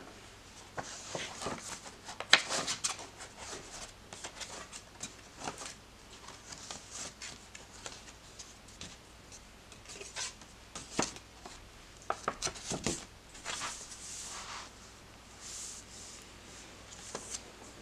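Paper sketchbook pages being lifted and turned by hand: a run of soft paper swishes and rustles with small crisp taps and flicks, the sharpest about two and a half seconds in.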